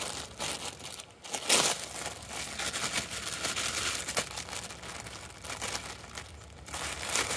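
Clear plastic packaging bag crinkling and rustling as it is handled and pulled open to get batting gloves out, with louder crackles about a second and a half in and near the end.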